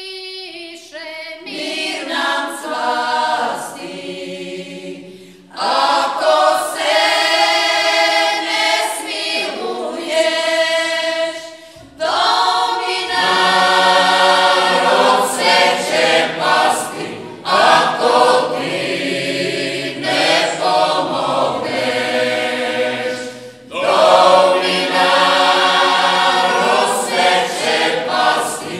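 Mixed-voice folk vocal group singing a Marian hymn a cappella in the traditional style of the Slunj region. The singing comes in phrases with short breaks, and the voices come back in louder after the breaks about five, twelve and twenty-four seconds in.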